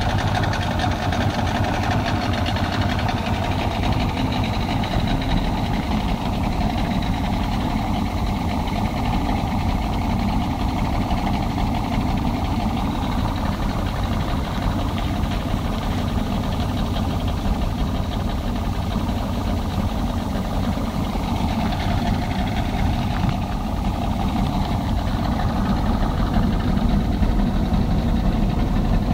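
Yamaha outboard motor idling steadily, a continuous low hum with no change in speed.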